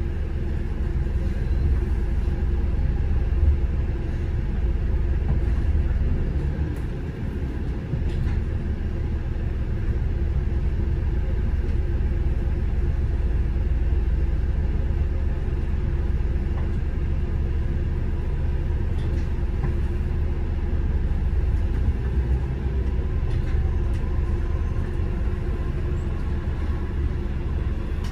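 City bus running along, a steady low engine and road rumble.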